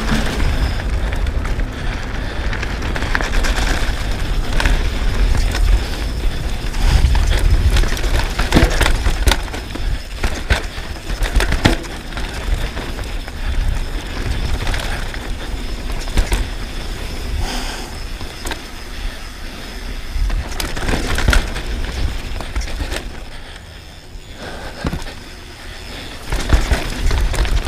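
Specialized S-Works Demo 8 downhill mountain bike ridden fast down a dirt flow trail, heard from a GoPro on the rider: heavy wind rumble on the microphone over tyre noise, with the chain and frame rattling and sharp knocks from bumps and landings. It goes quieter for a few seconds near the end.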